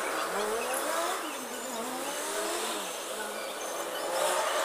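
A motor vehicle's engine revving, its pitch climbing and dropping over the first three seconds.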